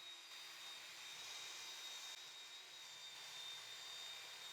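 Faint steady whine over a high hiss: a table saw running, heard very low.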